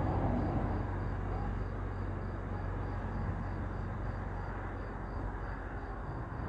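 Steady road and engine noise inside a moving car's cabin, a low hum with tyre noise. A faint high pulse repeats about three times a second over it.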